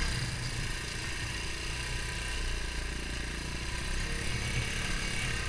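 Beta Alp 200 dirt bike's single-cylinder four-stroke engine running steadily at low revs, with no revving up or down.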